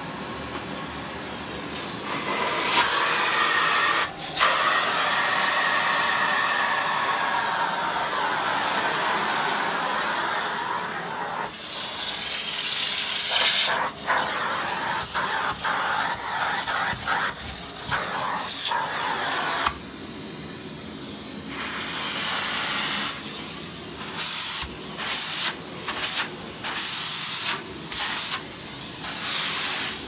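Miele Blizzard CX1 bagless canister vacuum cleaner running, its hose and upholstery nozzle sucking along a fabric sofa. The rush of air swells and drops several times as the nozzle is pressed onto and lifted off the upholstery, with short knocks and rubs of the tool on the fabric.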